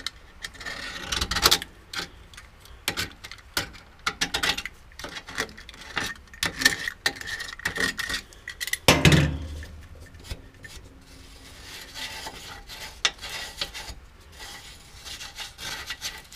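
Scraping and picking leftover plastic and glue out of a hot metal subframe cradle-mount sleeve by hand, irregular scrapes, rubs and light clicks. A duller thump about nine seconds in.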